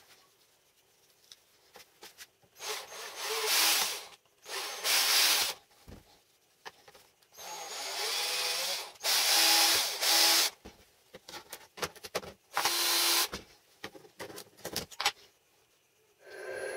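Cordless drill boring into a small clamped workpiece in several short bursts of one to three seconds each, the motor note and bit cutting starting and stopping between bursts, followed by a few light clicks of handling.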